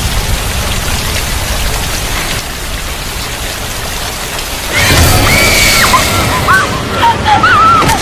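Heavy rain falling. From about five seconds in, a woman screams and wails over it in long, high cries that hold and then waver up and down.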